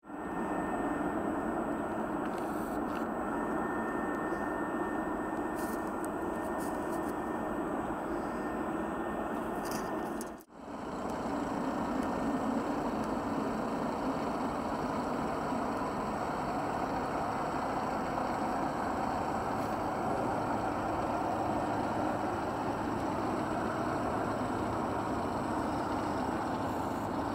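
Boeing 777-300ER's GE90-115B jet engines at taxi power, a steady jet noise with a faint high whine in the first part. The sound cuts out for a moment about ten seconds in, then carries on steadily.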